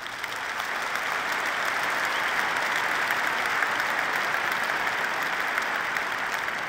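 A large audience in a big hall applauding. The clapping swells over the first second or so, then holds steady.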